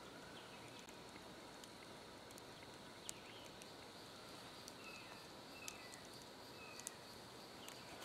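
Quiet woodland ambience: a steady, faint insect drone, with short falling bird chirps every second or so and a few faint ticks.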